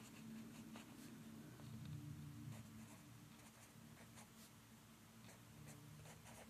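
Graphite pencil scratching faintly on notebook paper in short strokes as an equation is written out, over a faint low steady hum.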